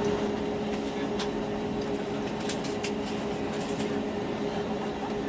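Steady cabin noise inside an Airbus A320neo: a constant hum from the engines and air conditioning, with a steady drone and a few light clicks.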